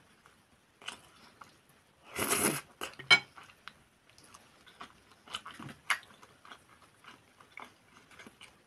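Close-miked wet chewing and lip-smacking, the mouth sounds of someone eating. Scattered small clicks run throughout, with a louder noisy burst a little over two seconds in and a sharp click about three seconds in.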